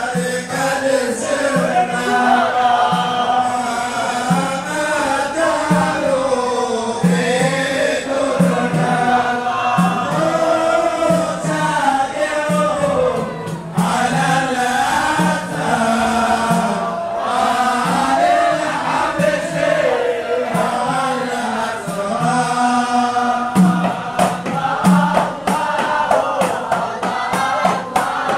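Men singing a Swahili maulid qasida, an Islamic devotional song, as a group with a lead voice, over a steady beat of hand-struck frame drums. The drum strikes grow sharper and denser in the last few seconds.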